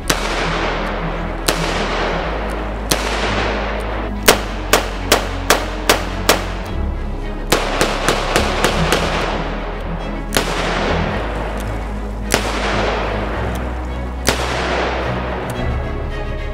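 Gunshots from a Kimber K6s DCR 2-inch stainless revolver chambered in .357 Magnum: more than a dozen sharp shots, including two quick strings of about six, then single shots with long echoing tails. Background music plays underneath.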